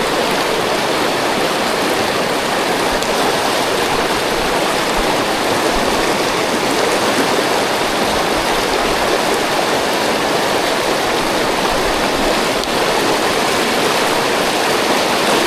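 A fast-flowing river running steadily, a loud, even rush of water.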